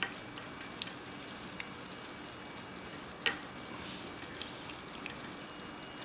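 Small clicks and ticks of a steel hook pick working the pins in the keyway of an old Soviet padlock under tension, the sharpest click about three seconds in.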